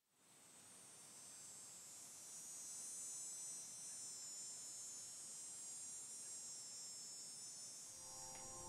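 Faint, steady high-pitched insect chorus, fading in at the start.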